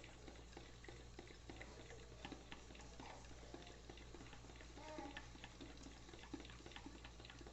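Faint, irregular clicking of a utensil stirring a liquid pudding mixture in a bowl.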